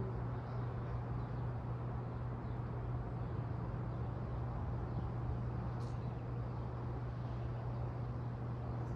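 Steady low hum over an even outdoor background rumble, with one faint tick about six seconds in.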